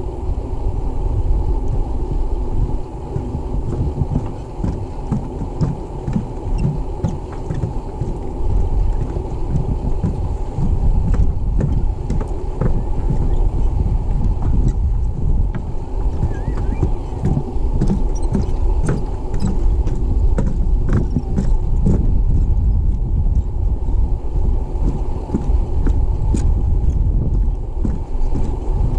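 Wind buffeting the microphone of a handheld action camera as a steady low rumble. Light, irregular knocks of footsteps on a wooden boardwalk sound through the second half.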